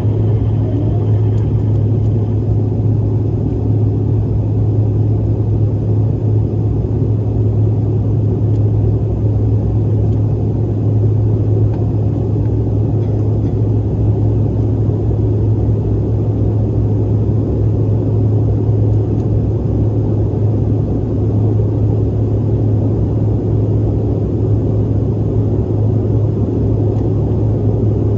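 Steady deep rumble of cabin noise inside a Mitsubishi CRJ-900ER jet airliner under way after takeoff: its two rear-mounted General Electric CF34 turbofans and the airflow over the fuselage, holding one even level.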